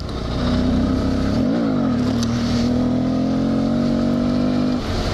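Motorcycle engine pulling under throttle while riding a dirt road. Its pitch briefly rises and falls about a second and a half in, then climbs slowly and steadily, and the engine note drops away abruptly near the end.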